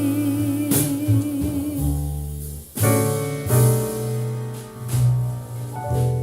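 A slow ballad instrumental passage of piano chords, bass and drums, played back through Canton Karat 100 three-way speakers. A held vibrato note from the singer's last line fades out over the first two seconds.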